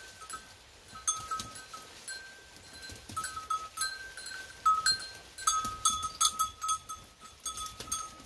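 Small bells worn by walking goats clinking and ringing irregularly at two slightly different pitches, growing busier and louder about five seconds in as more goats pass.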